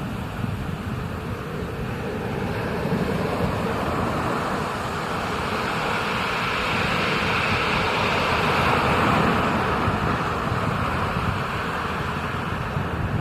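Ocean surf and wind rushing over a surfer's POV camera microphone: a steady noisy rumble that swells in the middle and eases near the end.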